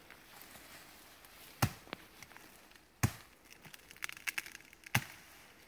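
A Swiss billhook (Gertel) chopping into the stems of a late-flowering black cherry: a few sharp blows into wood about a second apart, with a quick run of lighter crackles of twigs and branches about four seconds in.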